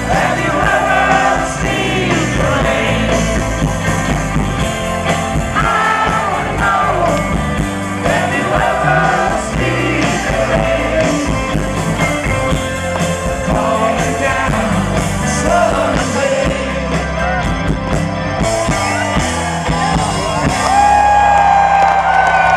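Live rock band playing with a sung lead vocal over electric guitars, bass and drums, through a large outdoor PA. Near the end it gets louder, with a long held guitar note and bending lines.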